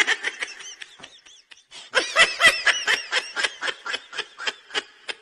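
A person laughing in quick, high-pitched bursts.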